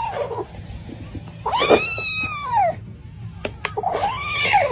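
A pet giving three drawn-out vocal calls, each about a second long and rising then falling in pitch, with a few small clicks between them.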